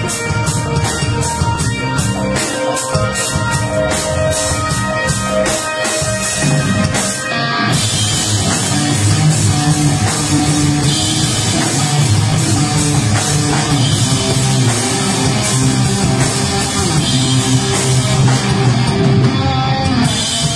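Live rock band playing: electric guitar notes over a steady drum beat, then about eight seconds in the full band comes in louder and denser with drums and guitars together.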